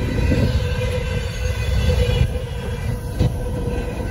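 Double-stack intermodal well cars of a BNSF freight train rolling past: a steady low rumble with wheel clatter and a sharp knock about three seconds in. A steady high tone rides over the rumble.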